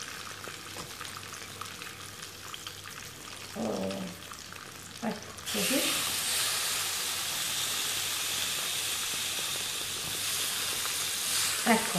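Guinea fowl pieces frying skin-side down in hot olive oil, the skin searing to form a crust. A light sizzle jumps to a loud, steady sizzle about five and a half seconds in, as another piece goes into the pan.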